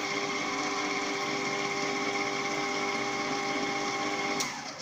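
Electric stand mixer's motor running at a steady speed, dry-mixing flour, yeast and salt in its steel bowl before any water goes in. It switches off near the end.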